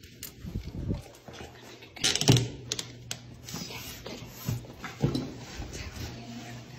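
Handling noise: clothes rustling and things knocking against a cardboard box in irregular knocks, with one louder clatter about two seconds in.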